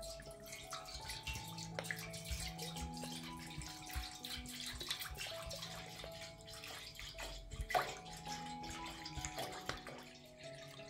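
Liquid pouring and splashing, with scattered drips and small knocks and one louder knock about three-quarters of the way in, over soft background music of slow held notes.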